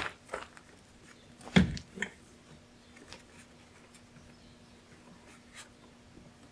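Scattered light clicks of a loosened plastic car door trim panel being handled, with one duller knock about one and a half seconds in. A faint steady hum sits underneath from then on.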